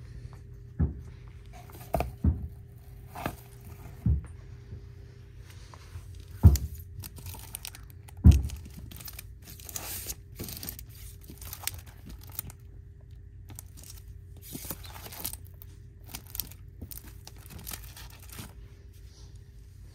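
Packaged sticker sheets being handled and flipped through: the plastic crinkles and rustles in quick flurries through the second half. Before that come several dull knocks and bumps, the loudest two about six and eight seconds in. A faint steady hum runs underneath.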